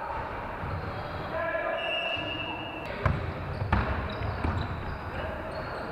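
Basketball bouncing on a gym floor, two sharp bounces about three seconds in, less than a second apart, with players' voices echoing in the sports hall.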